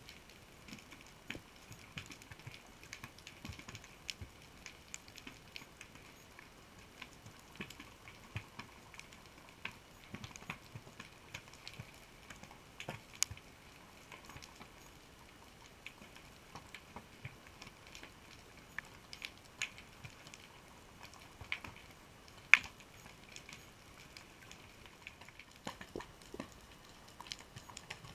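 Underwater crackle of a rocky reef, heard through a camera's waterproof housing: irregular small clicks and crackles over a faint steady whine, with two sharper clicks about thirteen and twenty-two seconds in.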